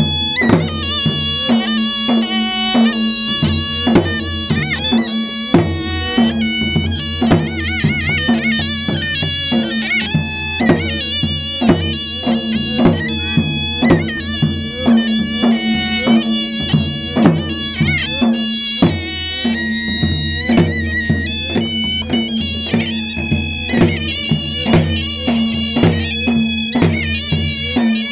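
Balochi surna (shawm with a brass bell) playing a reedy, wavering melody over a steady low drone, with dhol barrel drums beating a fast, even dance rhythm.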